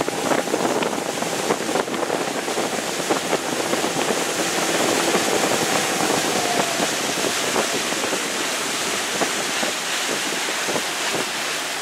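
Wind buffeting the microphone on a motorboat under way, over the rushing churn of its wake.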